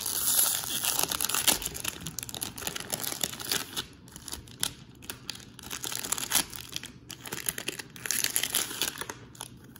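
Plastic wrapper of a trading-card value pack crinkling and tearing as it is pulled open, with the foil card packs inside rustling as they are handled. The crackling comes in two busy stretches with a quieter lull about four seconds in.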